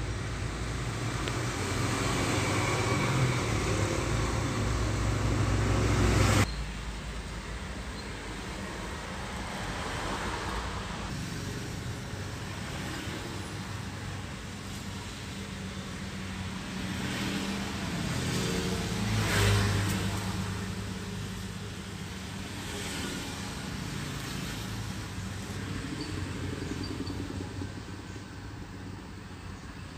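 Road traffic. A large coach's engine runs loud and low as it passes close, then cuts off suddenly about six seconds in. After that come motorcycles and cars, with one vehicle passing close about twenty seconds in.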